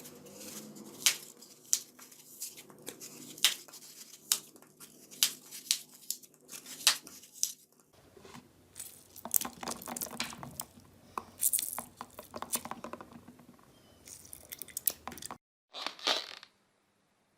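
Slime being squeezed, stretched and poked by hand, giving irregular sticky clicks and pops. The sound changes about halfway through and again near the end.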